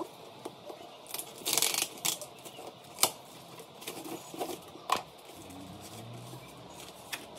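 A polystyrene foam shipping box being handled and opened: scattered sharp clicks and knocks, with a brief tearing rustle about a second and a half in.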